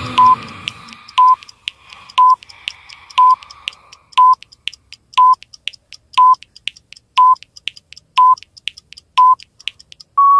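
Countdown timer sound effect: a short electronic beep about once a second, ten in all, with clock-like ticks between the beeps, ending in one longer, slightly higher beep. It opens with a loud breathy exhale falling in pitch.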